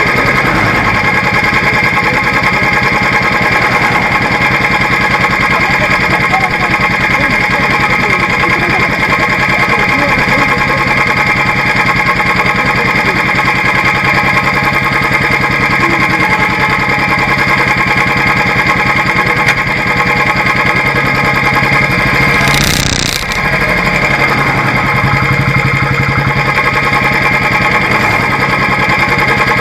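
Motorcycle engine idling close by, loud and steady, with an even rapid pulse. A brief rush of noise breaks in about three-quarters of the way through.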